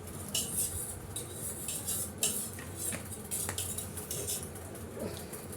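Cutlery clinking and scraping against plates and bowls in quick, irregular strokes as chowmein is eaten fast.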